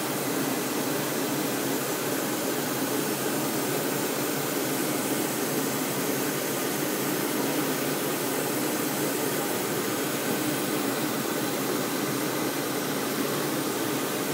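Industrial machine running steadily: an even mechanical hum with a constant hiss, unchanging throughout.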